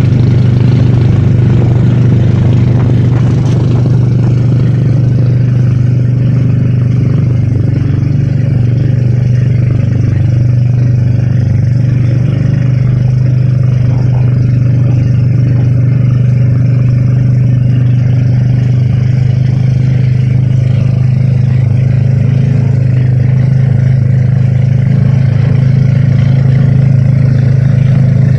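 Engine running steadily at an even speed: a loud, constant drone that holds the same pitch throughout.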